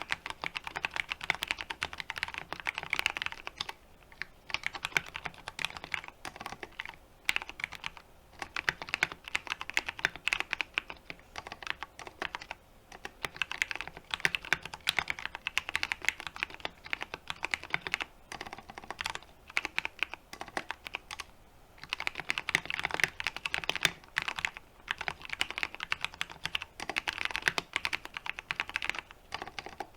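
Fast typing on a 60% mechanical keyboard with lubed Cherry MX Brown tactile switches in an aluminium case, PBT keycaps clacking in bursts of several seconds with short pauses between.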